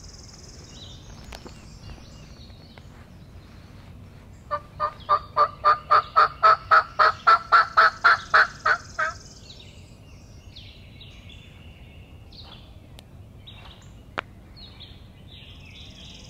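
A loud bird call: a run of about twenty evenly spaced notes, some four a second, rising slightly in pitch and lasting about four and a half seconds. A single sharp click follows near the end.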